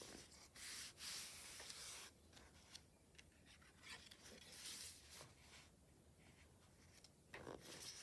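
Faint paper rustling as the pages of a small handmade notebook made from used envelopes and paper scraps are turned and brushed by hand. The longest rustle comes about a second in, with another in the middle and a short one near the end.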